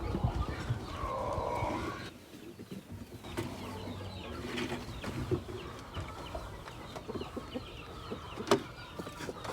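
Chickens clucking and calling in short repeated notes. Rustling handling noise fills the first two seconds, and a single sharp knock comes near the end.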